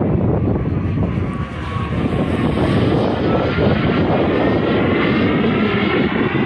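Harlock-RC Viper model jet flying a pass, its engine giving a loud steady rush with a whining tone that slides in pitch as it goes by.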